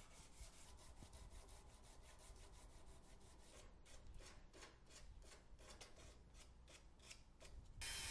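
Sandpaper rubbed by hand along a cocobolo wood knife handle: faint, quick back-and-forth sanding strokes, several a second, clearer in the second half. Just before the end a steady hiss cuts in.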